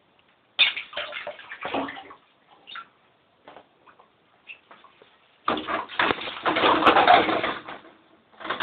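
Water splashing as a pet mink swims and plays after toys: a cluster of splashes early on, then a longer, louder spell of splashing about two-thirds of the way through.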